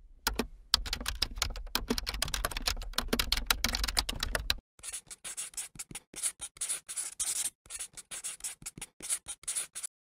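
Marker scratching on paper in quick strokes. There is a dense scribbling run for about the first four and a half seconds, then shorter separate strokes.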